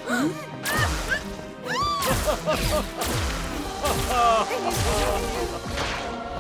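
Cartoon slapstick sound effects over background music: several crashes and whacks, mixed with quick whistling glides that rise and fall in pitch and low sliding drops.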